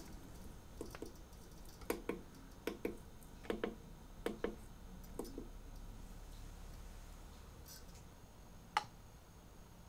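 Light clicks and taps of small watchmaking tools on watch parts: a run of about a dozen short clicks, several in quick pairs, through the first half, then one sharper click near the end.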